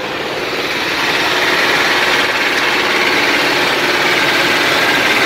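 A heavy dump truck's diesel engine running steadily close by, growing louder over about the first second and then holding level.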